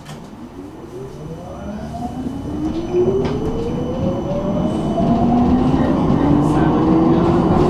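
Electric tram pulling away from a stop, heard from inside the car: the traction drive's whine rises steadily in pitch as the tram gathers speed, while the rumble of the wheels on the rails grows louder.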